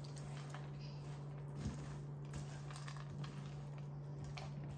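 Faint soft scraping and squishing of a silicone spatula stirring chopped nuts and seeds into sticky date paste in a ceramic-coated frying pan, with a few light ticks, over a steady low hum.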